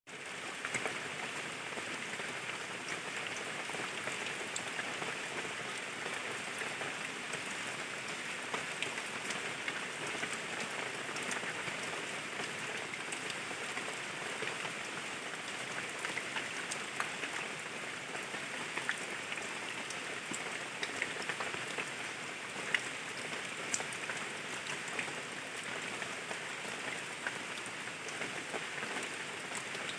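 Steady rain falling on leaves and soil, with a dense patter of individual drops ticking over the continuous hiss.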